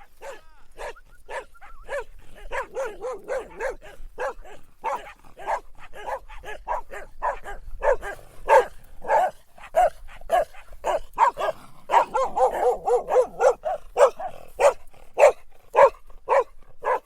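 Dog barking over and over in short, quick barks, about two to three a second, getting louder from about halfway through.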